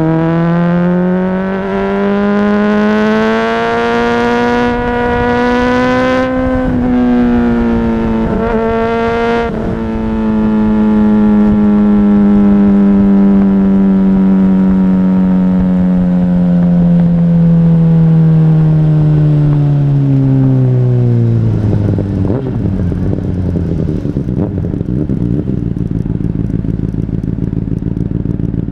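Honda CBR600RR inline-four engine with an aftermarket exhaust. Over the first few seconds the revs rise, with a few short breaks around 6 to 10 seconds in. The pitch then falls slowly and steadily for about ten seconds as the bike slows off the throttle, and about 22 seconds in it settles to a steady low idle.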